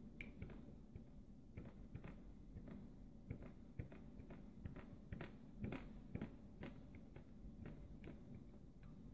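Faint, irregular scratching clicks of a snap-off utility knife blade scoring a phone's small charging-port circuit board, cutting through a wide trace that still conducts.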